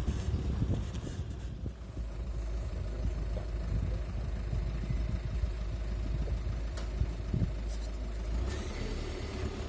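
Citroën C4 Picasso (B78) on the move: steady low road and running rumble, with a few faint short creaks or clicks from the rear suspension scattered through it.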